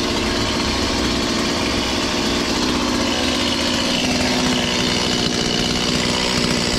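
Stihl MS 170 two-stroke chainsaw idling steadily after being warmed up.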